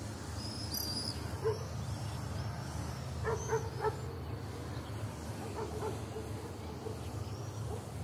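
Short animal calls: one about a second and a half in, a quick run of three about three seconds in, and more scattered later, over a steady low hum, with faint high chirps above.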